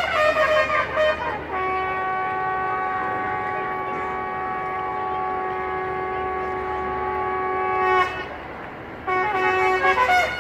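Bugle call with short notes at the start and a single long held note of about six seconds. Shorter changing notes return near the end.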